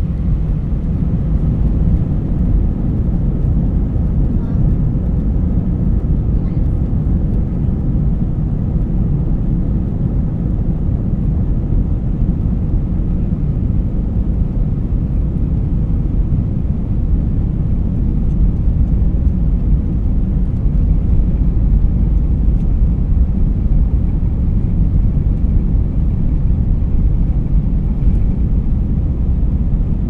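Airbus A319 cabin noise during take-off: the jet engines at take-off power and the rumble of the airframe make a loud, deep, steady noise, swelling slightly about two thirds of the way through.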